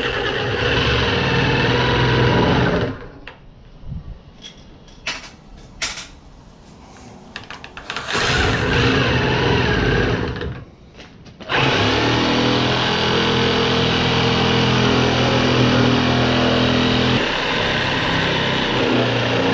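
XU1 corded reciprocating saw cutting hard jarrah timber with nails in it. It runs for about three seconds, stops, runs again briefly from about eight seconds in, then runs steadily from about twelve seconds in to the end. A few knocks sound in the quieter pause between the first two runs.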